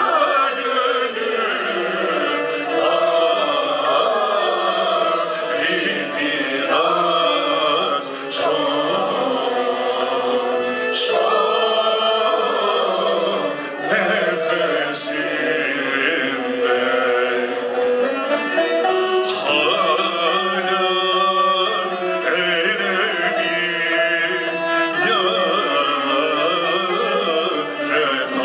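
A male soloist sings a Turkish classical art song in long, wavering ornamented lines, accompanied by a traditional Turkish ensemble with kanun and ud.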